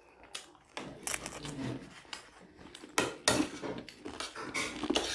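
Spoons clinking and scraping on plates of food, a run of sharp clicks with the loudest pair about three seconds in.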